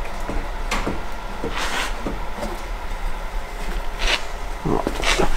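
A few short knocks and clatters of tools and parts being handled during work on a car, over a steady low hum.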